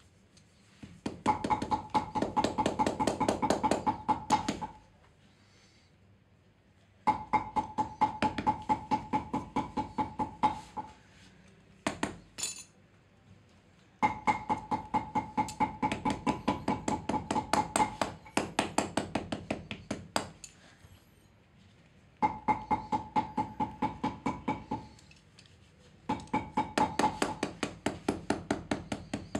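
Rapid hand tapping on a handmade sandal with a metal tool, about seven taps a second with a ringing note. The taps come in four runs of several seconds each, with short pauses between them.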